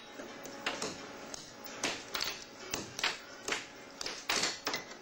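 Air hockey puck being struck back and forth with mallets: a run of sharp, irregular clacks, about two a second.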